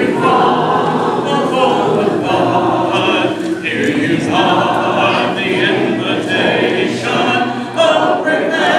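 Church congregation singing a hymn a cappella: many voices singing together with no instruments.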